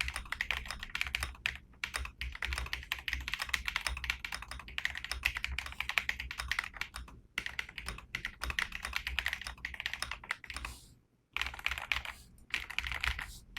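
Redragon K745 Pro mechanical keyboard being typed on quickly: a dense, continuous stream of key clicks with two brief pauses.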